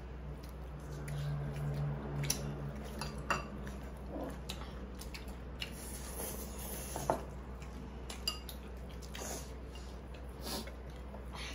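Chopsticks and dishes clinking at a dining table during a meal: scattered light clicks and taps of utensils on bowls and a glass.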